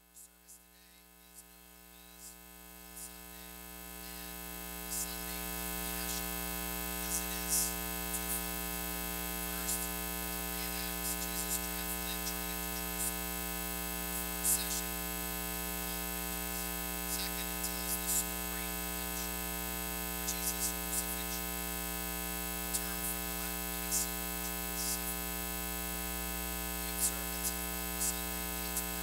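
Steady electrical mains hum, rising over the first few seconds and then holding level, with scattered faint crackles.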